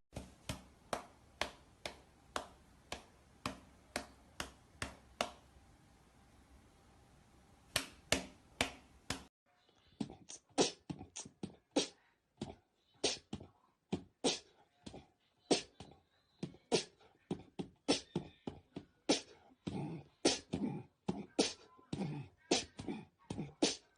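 A long run of short, sharp taps, about two a second, with a pause of a couple of seconds before they resume and carry on less evenly.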